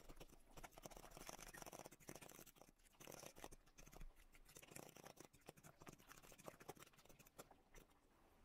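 Metal spoon stirring and scraping a thick, creamy mixture in a glass bowl: faint, quick scraping and clicking strokes, with a short pause about three seconds in.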